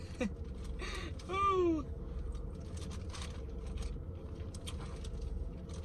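Clear plastic bag crinkling and rustling in short irregular crackles as hands rummage through the seafood in it. A brief vocal sound comes about a second in, over a low steady hum.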